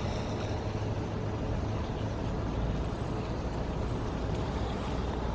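Steady road noise and low engine rumble inside the cabin of a Mercedes GLS 450 SUV while it drives along.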